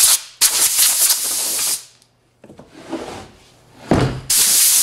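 Compressed-air blow gun on a shop air hose hissing in short blasts. There is one blast at the start, a longer one lasting over a second, then a low thump about four seconds in and another blast near the end.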